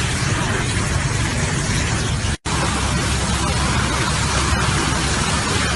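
Heavy machinery running with a steady, noisy drone. It cuts off abruptly for an instant about two and a half seconds in, then goes on with a steadier low hum.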